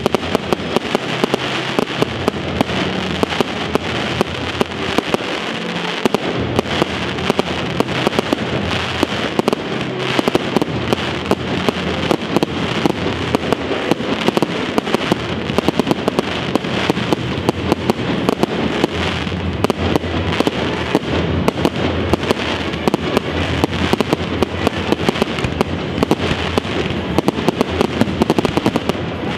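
Fireworks display: aerial shells bursting in a rapid, unbroken series of bangs and crackles.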